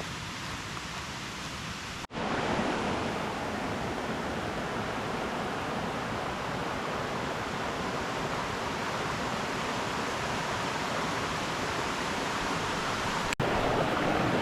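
Steady rush of flowing stream water, cut off for an instant about two seconds in and again near the end, and a little louder after the first break.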